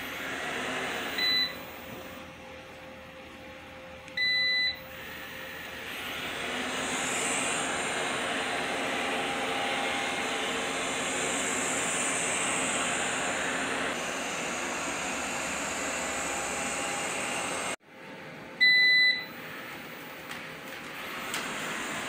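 eufy robot vacuum running with a steady whirr of its suction fan and brushes, and giving three short electronic beeps; the last beep is the loudest.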